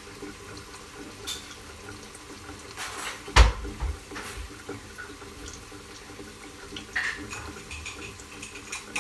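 Dishes and utensils clinking off to the side, with one loud knock a little over a third of the way in, over the faint steady sizzle of chicken pieces frying in a pot.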